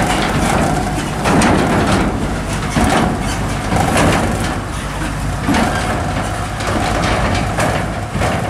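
Tractor towing a high-sided silage trailer along a rough forest track: a steady low engine drone, with the trailer body rattling and knocking over bumps and branches cracking and scraping.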